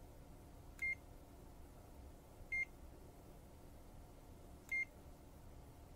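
Mustool MT111 touch-screen digital multimeter giving three short, high beeps about two seconds apart as its on-screen buttons are pressed to change the measuring function.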